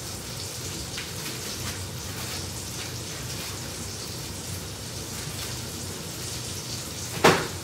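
Steak frying in a pan, a steady sizzling crackle with scattered pops. A single loud knock near the end.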